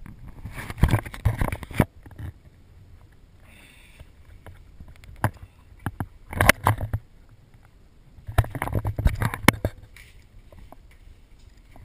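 Rustling and knocking close to the microphone in three short bursts, with a faint low hum between them: handling and movement noise as a person moves right beside the camera.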